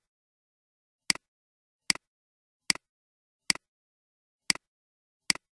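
Computer mouse clicks: six short, sharp clicks roughly a second apart, each a quick double tick of button press and release, with dead silence between them.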